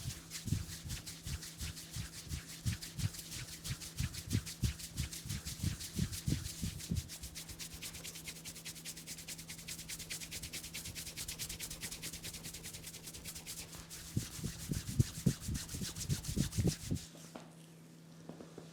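Hands rubbing a head and hair briskly during a head massage: fast, even strokes with soft low thumps mixed in, which stop abruptly near the end.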